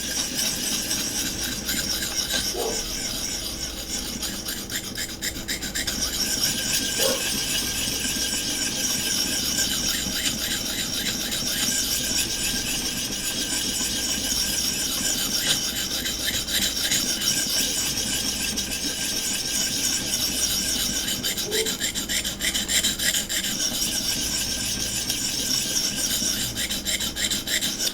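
A 600-grit abrasive on a Vipersharp guided knife-sharpening system rasping back and forth along a knife edge in steady, continuous strokes, grinding in the secondary bevel; it stops at the very end.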